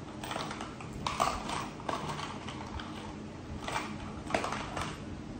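Light clicks and clacks of small tools and hard plastic parts being handled and set down on a tabletop while a hex key is looked for: a cluster about a second in, one near two seconds, and several more between about three and a half and five seconds.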